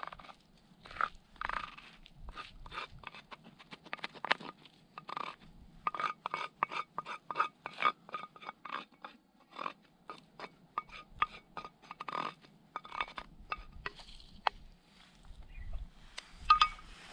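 Wooden spatula scraping scrambled eggs out of a small frying pan into a wooden bowl: quick short scrapes, two or three a second, with a sharper knock near the end.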